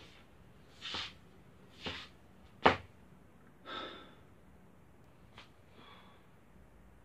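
A person's short, heavy breaths and sighs, several about a second apart, with one sharp knock a little before halfway that is the loudest sound.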